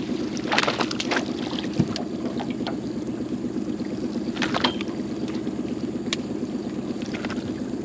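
A boat motor running steadily with a constant hum, with a few sharp clicks and knocks scattered through it.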